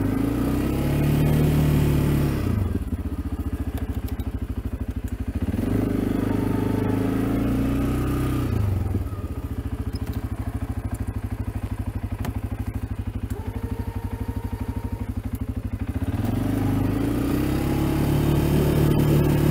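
CFMoto CForce ATV engine working while plowing wet snow. It revs up and drops back in cycles: high for the first couple of seconds, again from about six to eight seconds, and from about sixteen seconds on, running at lower revs in between.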